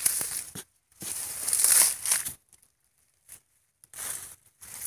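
Dry paddy soil being dug and scraped out of a rice-field crab burrow with a hand tool and gloved hand, in scratchy, crumbly bursts. The loudest stretch comes about a second and a half in, then a pause of over a second before shorter scrapes near the end.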